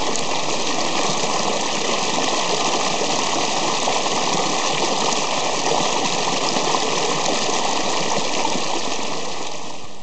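Shallow mountain stream rushing over boulders: a steady, even rush of water.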